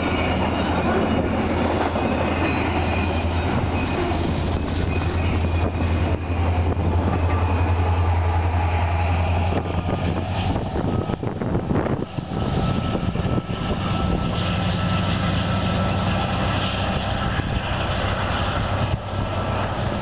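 Freight train of double-stacked container cars rolling past close by. About halfway through, a Union Pacific diesel-electric locomotive at the rear of the train goes past: a strong steady low engine drone, which gives way to a higher hum after a brief dip.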